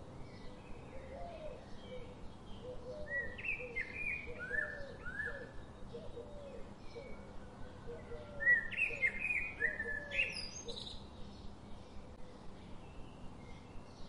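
Captive finches chirping: two bursts of quick, downward-sliding chirps, a few seconds in and again past the middle, over a run of softer, lower repeated call notes.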